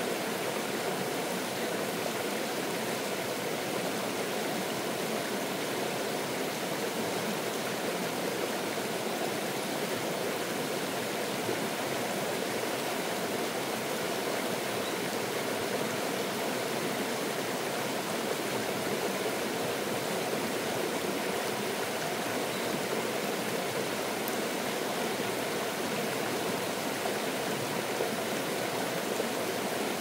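Small mountain stream running over a low rocky cascade: a steady, unchanging sound of flowing water.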